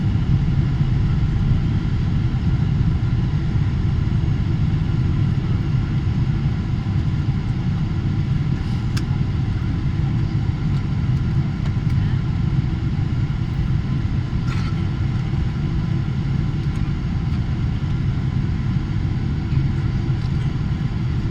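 Steady low rumble of a Boeing 777-300ER heard from inside the passenger cabin: engine and airflow noise with no distinct thump or change.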